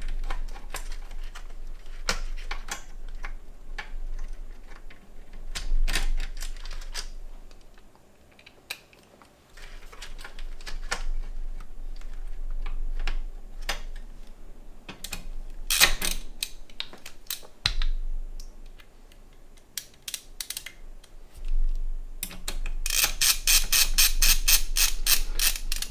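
Scattered clicks and small knocks of a screwdriver, screws and metal case parts as a power supply is screwed back into a small ITX PC case. Near the end comes a fast, even run of clicks, about eight a second.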